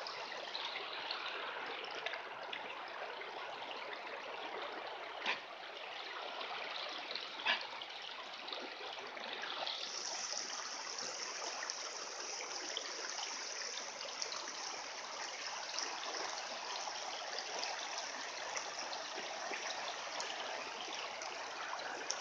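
Shallow creek water running steadily over a gravel bed, a continuous rushing trickle that turns brighter and hissier about halfway through. Two short, sharp sounds stand out, about five and seven and a half seconds in.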